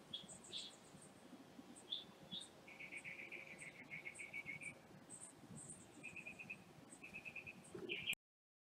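Faint chirping from small animals: scattered short high chirps and several rapid buzzy trills, one long trill near the middle and shorter ones later. The sound cuts off abruptly near the end.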